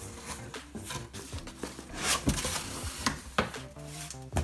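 Cardboard and polystyrene foam packaging rubbing and scraping as a monitor box is opened and its foam insert is lifted out. The loudest swish comes about two seconds in, followed by a couple of short sharp scrapes.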